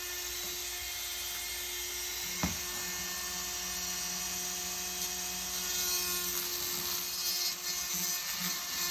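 Power grinder running steadily at a constant high speed, grinding down the end of the wrench's rusted pivot pin so the pin can be pushed out. There is one short knock about two and a half seconds in, and the sound grows a little louder and more uneven from about six seconds.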